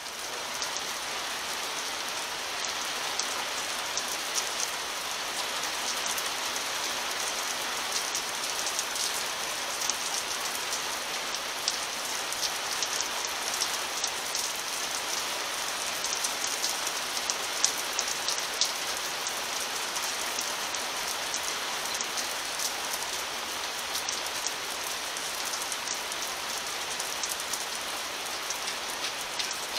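Steady rain falling, with many individual drops ticking.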